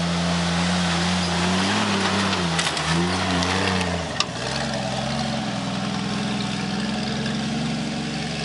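Jeep CJ engine pulling up a hill trail. Its pitch rises and falls between about two and four seconds in as the throttle is worked, and there is a single sharp knock just after four seconds. It then settles to a steadier, lower note as the Jeep moves off.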